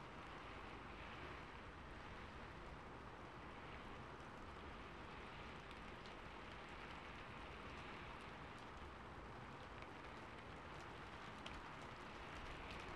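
Rain falling on a rooftop: a faint, steady hiss of rainfall with scattered light drop ticks.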